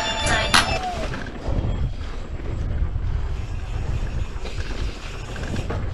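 Mountain bike riding fast down a rough dirt trail: uneven wind rumble on the action camera's microphone over the rattle and rolling of knobby tyres on dirt and rock.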